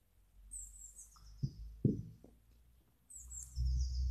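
A garden songbird singing short runs of high, falling chirps, twice, with three short soft knocks in between and a low wind rumble on the microphone swelling near the end.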